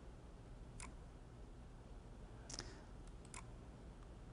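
A few faint computer mouse clicks: one about a second in and a small cluster near three seconds, over a low steady hum.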